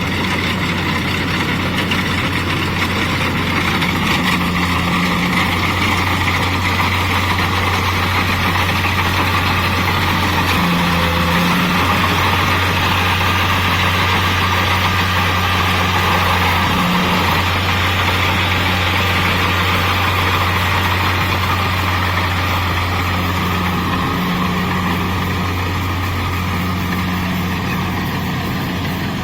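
Kubota DC-70 combine harvester running steadily: a low diesel engine hum with an even mechanical hiss of the harvesting machinery over it.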